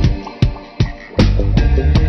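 Music with a steady, fast beat: regular drum hits about two and a half times a second over a bass line.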